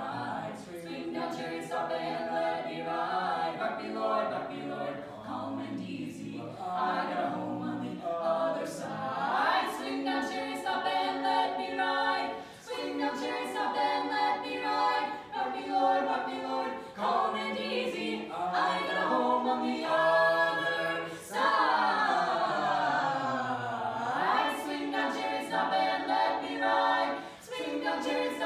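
Mixed-voice barbershop quartet (tenor, lead, baritone, bass) singing a cappella in close four-part harmony, with held chords. About three-quarters through, the voices slide down together in a long fall and then swing back up.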